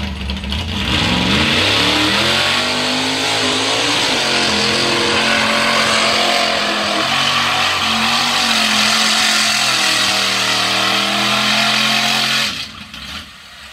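Mud truck's engine revving hard as it launches through the mud pit, its pitch climbing over the first few seconds and then held high and wavering at full throttle, before dropping off abruptly near the end.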